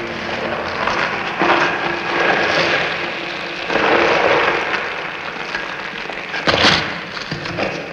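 Breathing through gas-mask respirators: slow hissing swells of about a second each, and a sharper burst of noise near the end.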